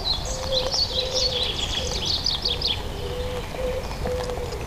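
A songbird sings a fast, twittering run of high notes that stops about three seconds in. Under it a pigeon coos in low, steady notes, repeated again and again.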